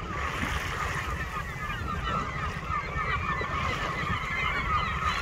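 Chorus of a large bird colony: a great many birds calling at once, their short calls overlapping into a continuous clamour, over a steady low rumble.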